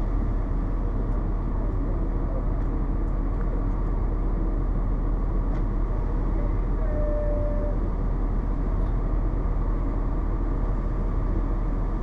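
Cummins ISC inline-six diesel of a Blue Bird CS transit bus idling steadily while the bus stands at a stop, heard from inside the passenger cabin.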